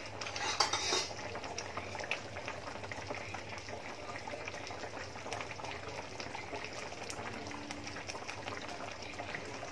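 Coconut-milk sauce with fish simmering in a wok, a steady soft bubbling. A few light clinks of a spoon or spatula against the pan in the first second.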